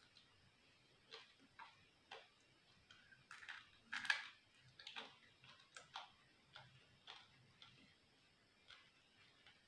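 Faint, close-miked chewing: irregular soft clicks and smacks from the mouth, about one or two a second, coming thickest and loudest around four seconds in.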